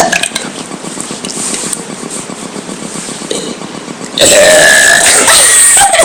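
A person forcing out a long, loud burp about four seconds in, lasting nearly two seconds and distorting from overload.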